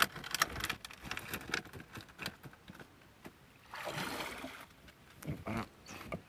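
Mesh fish trap (bubu) handled over a wooden canoe: it knocks and rattles against the boat, with water splashing and trickling from it, more noisily about four seconds in.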